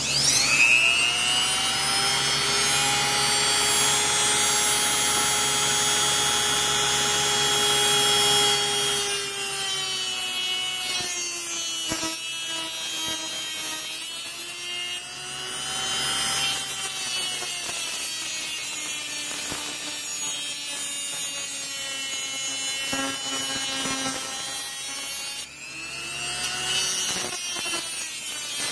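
Dremel rotary tool spinning up and cutting through steel drill rod. Its high whine sags and recovers as the wheel bites into the rod. It cuts out for a moment about three seconds before the end, then spins up again.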